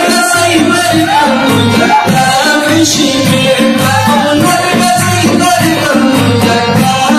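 Gilgit-Baltistan folk song: a man singing over a harmonium melody and a steady dhol beat.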